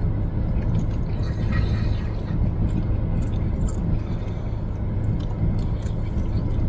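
A steady low hum, with small clicks and brief scrapes, typical of utensils and a food container while someone eats.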